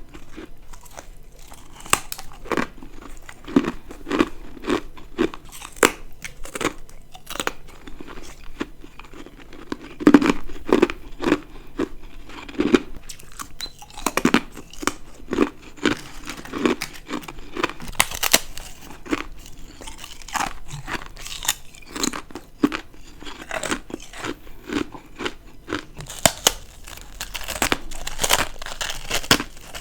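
Ice being bitten and chewed close to the microphone: repeated crisp crunches and crackles of brittle frozen ice breaking between the teeth, in clusters of quick strokes with a louder bite about ten seconds in.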